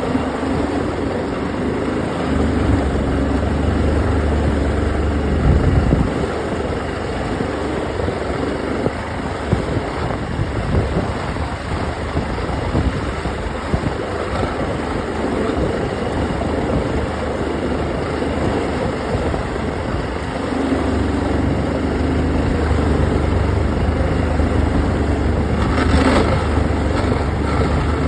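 Yamaha OX66 V6 two-stroke outboard running steadily with a weird grinding noise whose cause the owner has not found. A deeper drone comes in about two seconds in, drops out about six seconds in, and returns for the last stretch.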